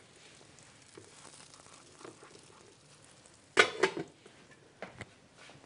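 Faint handling noise, then a short, loud scrape and clatter about three and a half seconds in as a frying pan is handled on the stovetop, with a smaller knock near the end.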